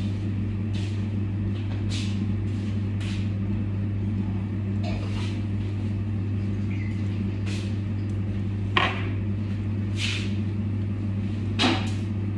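Steady low hum of a kitchen machine running, with scattered light knocks and clatter of kitchen work over it; the sharpest knocks come late, about nine and eleven and a half seconds in.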